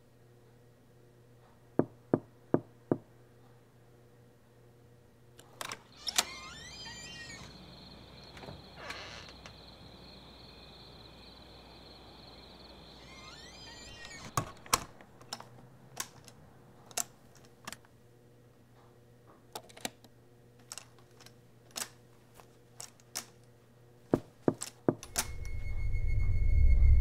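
Sharp knocks on a wooden door: four quick raps about two seconds in and a couple more near six seconds. Crickets chirp for a stretch in the middle, scattered single sharp taps follow, and a low rumbling drone swells near the end.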